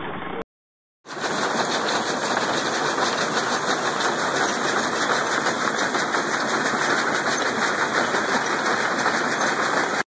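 Belt-driven stationary hay baler running, a dense, fast mechanical clatter that keeps up steadily. It starts abruptly about a second in, after a short gap of silence.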